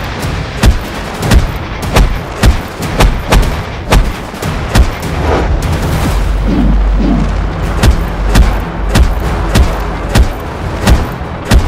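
Fight sound effects: a rapid run of sharp, booming hits, two or three a second. They break a little past halfway for a deep rumble, then the hits resume.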